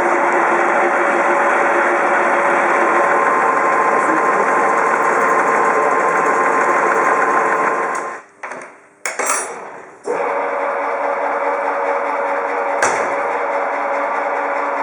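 Horizontal boring mill milling a part: a loud, dense, steady cutting noise with a few steady tones in it. About eight seconds in, it drops away for roughly two seconds, with a couple of short bursts, then resumes with a slightly changed tone.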